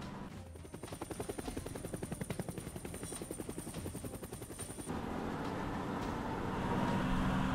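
Helicopter sound effect: a rapid, even rotor-blade chop with a thin high turbine whine, which cuts off about five seconds in. A large truck engine then idles with a steady low hum.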